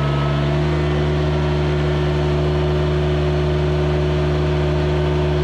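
Engine driving a custom-built bush hog, running steadily under load while cutting a trail through brush. Its pitch rises slightly about half a second in, then holds.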